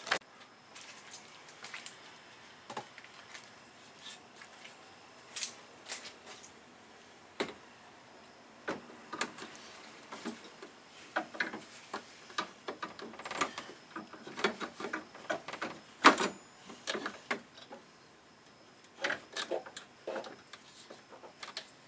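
Light, irregular clicks and knocks as a new radiator is worked down into a car's radiator support, with one sharper knock about sixteen seconds in.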